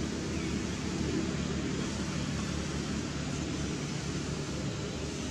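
Steady outdoor background noise: a low rumble with an even hiss, no distinct events.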